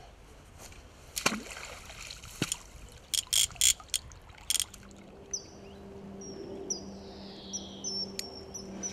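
A hooked carp splashing at the surface near the bank while being played on a fly rod, a few sharp splashes about three to four and a half seconds in. In the second half a bird sings high whistled notes, including one falling note, over a steady low hum.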